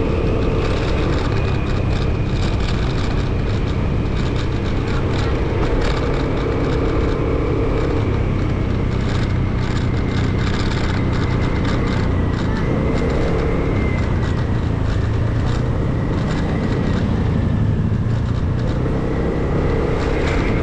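Motorcycle engine running steadily while riding, under a constant rush of noise, with the engine pitch drifting only slightly.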